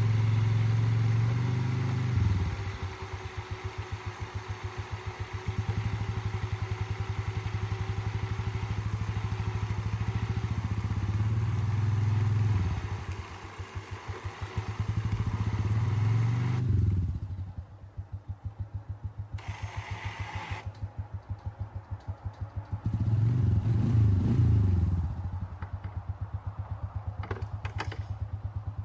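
A small engine running: it speeds up to a steady higher pitch and drops back to a pulsing idle several times. It is fast at the start, again around the middle, and once more with a short rise and fall near the end.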